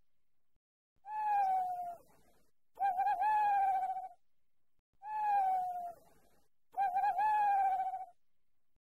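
Owl calling four times, about every two seconds: each call a clear drawn-out note of about a second, some opening with a quick waver and others sliding down in pitch.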